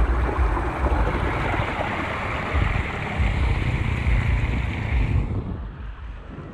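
Muddy floodwater rushing and splashing as it pours through a grate into a culvert drain box, with wind buffeting the microphone. The rushing cuts off abruptly about five seconds in, leaving the wind rumble.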